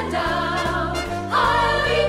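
Show tune: a woman's voice singing held notes over brass and orchestral backing with a steady, stepping bass line. A new loud phrase comes in just past halfway.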